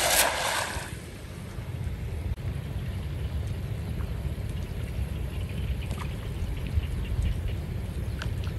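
A thrown cast net splashing down over the pond's surface, a hissing rush of water lasting about a second, followed by a steady low rumble.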